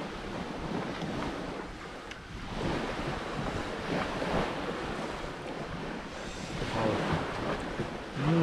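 Surf washing on a beach, with wind rushing over the microphone; the noise swells and eases a couple of times.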